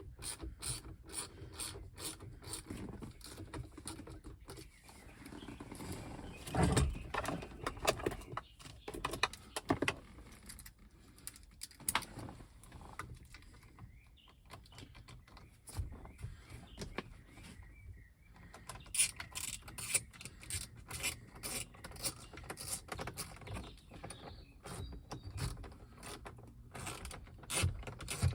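Ratchet wrench clicking in runs as the two 10 mm bolts holding the steering wheel airbag are driven in, with scattered knocks of tools and parts being handled and one louder knock about seven seconds in.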